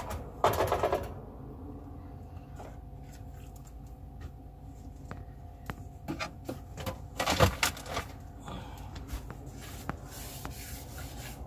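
Knocks and clatter of kitchen things being handled: a rattling burst about half a second in and another around seven and a half seconds, with scattered light clicks and knocks between, over a faint steady hum.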